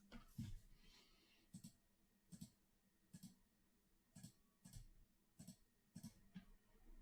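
Faint clicks of a computer mouse, one roughly every second.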